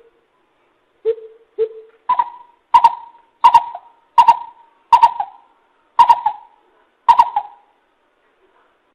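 Coucal calling: a series of about nine deep hooting notes, the first two lower and the rest higher, roughly one every 0.7 s, each with an echoing tail.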